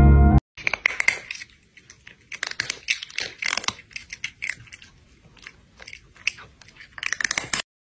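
Close-up crunching and chewing of dry bread crackers (sukhariki), irregular crunches that cut off abruptly near the end. Plucked-string music stops in the first half-second, just before the crunching begins.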